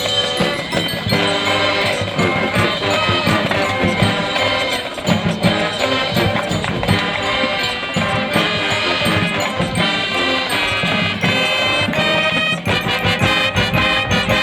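High school marching band playing its halftime show live: massed wind instruments over steady drum and percussion hits.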